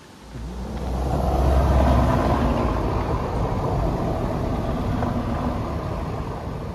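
A motor vehicle driving past close by: engine and tyre noise building over about a second, then slowly fading.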